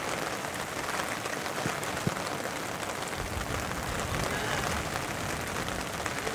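Steady hiss of rain falling over an open football pitch, with faint players' shouts and a single sharp thump about two seconds in.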